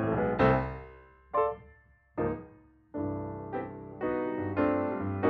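Background piano music. A chord rings out and fades, two single notes each die away, and then steadier chordal playing resumes about three seconds in.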